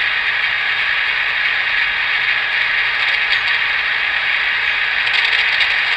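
Passport pocket transistor radio hissing loudly and steadily from its small speaker, with a few faint crackles in the second half. The static is the set coming back to life after a missing ground connection was jumpered.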